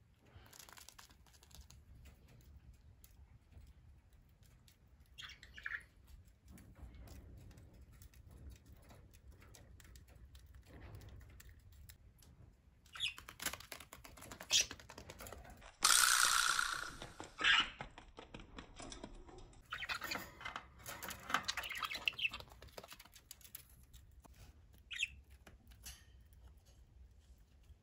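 Green-cheeked conure moving about, its claws making light taps on a tatami mat, with a couple of short chirps. Around the middle come several louder, harsh bursts, the loudest a little past halfway.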